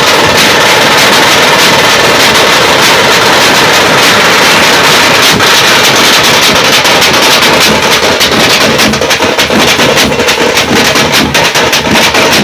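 Group of festival drummers playing shoulder-slung double-headed drums with sticks in a loud, fast, continuous rhythm. The individual strokes stand out more in the last few seconds.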